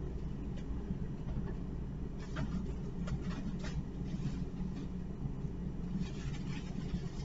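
Steady low room hum, with a few faint clicks and rustles of supplies being handled at a counter about two, three and six seconds in.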